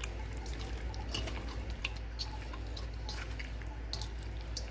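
Wet squishing and smacking of raw boneless chicken pieces being squeezed and mixed by hand with ginger-garlic paste, salt and lemon juice in a stainless steel bowl: a run of small, irregular squelches.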